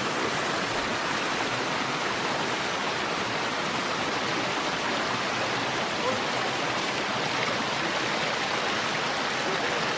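Waterfall water rushing: a steady, even rush of falling water.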